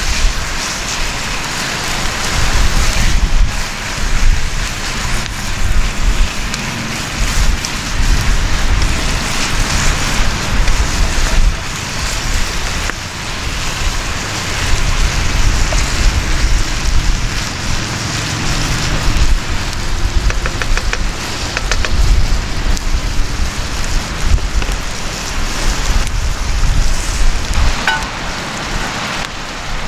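Meat sizzling as it browns in a cast-iron Dutch oven over a campfire, stirred with a wooden spatula: a steady, loud hiss, over a low wind rumble on the microphone.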